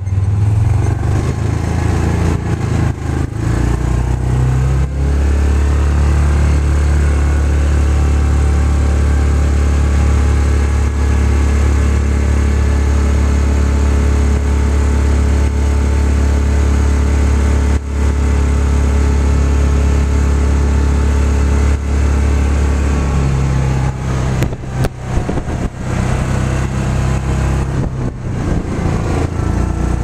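Engine of a Yamaha Rhino side-by-side, a single-cylinder four-stroke, running while the vehicle drives through snow. It holds a steady note through most of the stretch, changes pitch about four seconds in and again about 23 seconds in, and grows uneven near the end.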